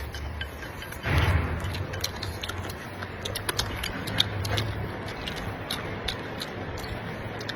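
Close-up chewing of crunchy food, with irregular sharp crunches and clicks over a low rumble that swells briefly about a second in.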